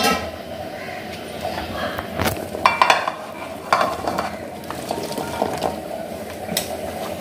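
Chopped vegetable pieces being dropped into a cooking pot, with scattered clinks and knocks of pieces and utensil against the pot over a faint steady hum.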